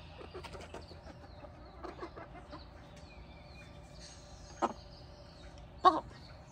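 Backyard hens making soft, quiet clucks and trilling calls, with two short, louder clucks near the end.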